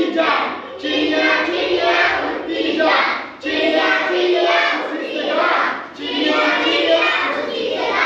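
A group of children singing an action song in unison, led by an adult voice, in three long phrases with brief breaks between them.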